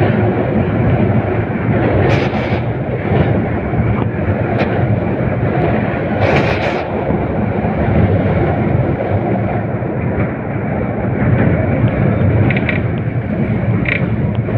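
LVS-86K articulated tram running along its track at speed: a steady rumble of wheels and running gear, heard through an open window vent, with two brief hisses about two and six seconds in.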